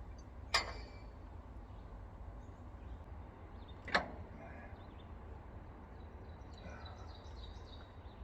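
Two sharp metal clanks about three and a half seconds apart, the first with a short ring: a wrench knocking against a stubborn hydraulic hose fitting on an excavator that will not come loose.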